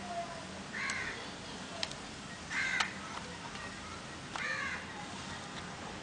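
Crows cawing in the background: three harsh calls, roughly two seconds apart, with a couple of light clicks between them.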